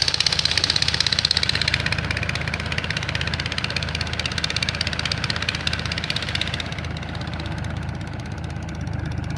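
Kubota L4018 tractor's diesel engine running steadily as the tractor works slowly through a flooded rice paddy with its rear rotary tiller. A bright upper clatter over the low engine hum fades about two-thirds of the way through.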